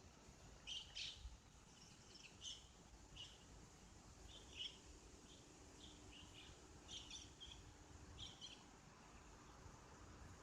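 Faint bird chirps: a scattering of short, high calls, a close pair about a second in and more spread throughout, over a near-silent background.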